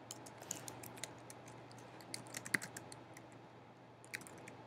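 Typing on a computer keyboard: light, irregular key clicks in short runs, entering a line of code.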